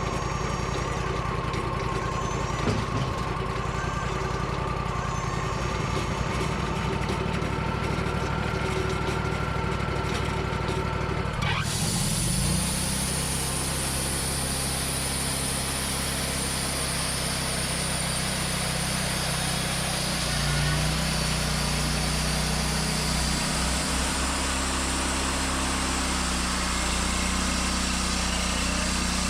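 Portable sawmill engine running steadily. About a third of the way in, a loud steady hiss with a high whine starts abruptly over it as the saw blade runs into the split pine log and cuts, and the engine note changes under the load.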